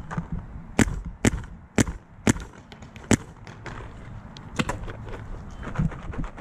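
Paintball marker firing: five sharp shots about half a second apart in the first three seconds, then a few more, quieter ones near the end.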